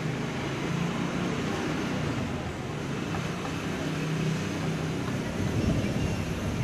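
Steady low rumble of city road traffic, with a faint engine hum in it.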